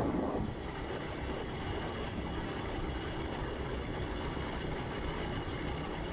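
Steady engine and road rumble of a moving vehicle, with a louder swell that dies away in the first half second.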